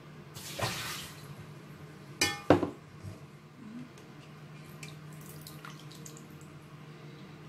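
A short rush of water just under a second in, then a glass bowl set down with two sharp ringing clinks about two seconds in. A faint steady low hum runs underneath.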